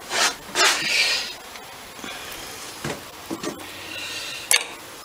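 Handling noise from the dismantled metal carburettor and tools: rubbing and scraping twice in the first second or so, then a few light clicks and taps.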